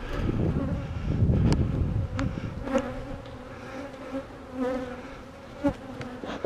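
Swarm of honeybees buzzing steadily around an open hive, a continuous drone. A low rushing noise sits under it for the first two seconds or so, and a few sharp clicks come later.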